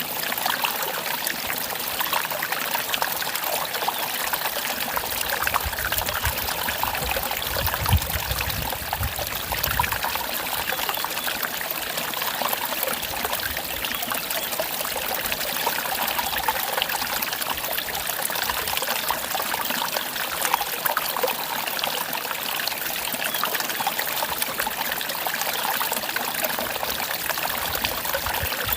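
Mountain valley stream trickling and splashing steadily over rocks, with a brief low rumble in the middle.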